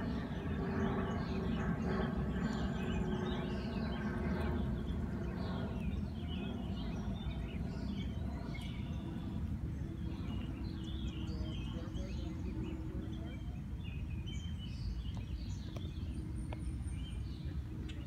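Small songbirds chirping over and over above a steady low rumble of outdoor background noise. A steady hum runs through the first five seconds and comes back more faintly for a few seconds near the middle.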